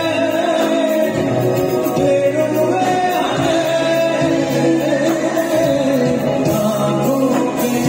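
A man singing live into a microphone, holding long notes that bend and waver in an ornamented melodic line, over steady instrumental accompaniment.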